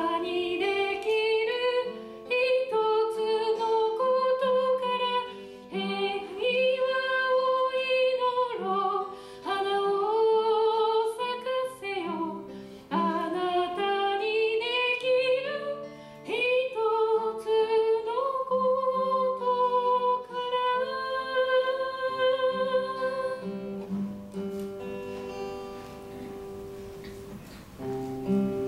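A woman singing, accompanying herself on a steel-string acoustic guitar. The singing stops about 24 seconds in and the guitar plays on alone.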